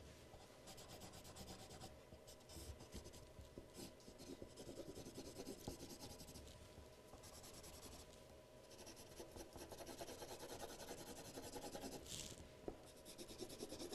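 Coloured pencil shading on drawing paper: a faint, quick back-and-forth scratching of light strokes, with a couple of brief pauses.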